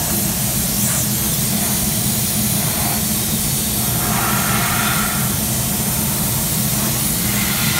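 Steady machinery hum with a hiss over it: the running plant of a crystal glass-blowing floor, with a constant low drone throughout.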